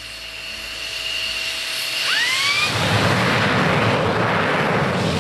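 Jet engine spooling up: a steady turbine whine, then pitches sweeping upward about two seconds in, giving way to a loud, steady rush of jet noise that grows louder.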